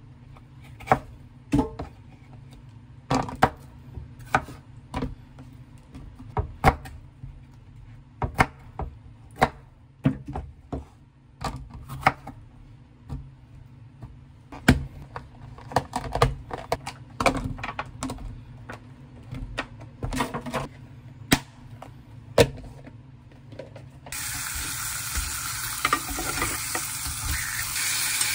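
Kitchen knife chopping bell peppers on a wooden cutting board, a run of sharp, irregular knocks, with pieces handled into plastic containers. About 24 seconds in this gives way to a steady, louder sizzle of meat slices frying in a pan.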